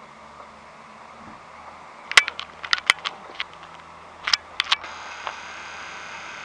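Firecracker fuse burning with a steady hiss over the last second and a half, after a scatter of sharp clicks and crackles in the middle.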